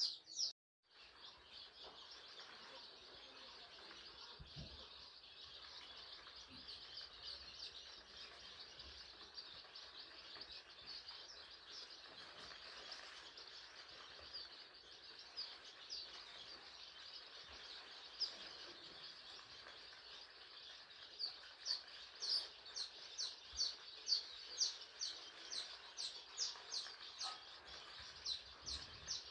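A brood of newly hatched deshi (native) chicken chicks peeping continuously in high notes. In the last third, several chicks peep louder and in quick succession.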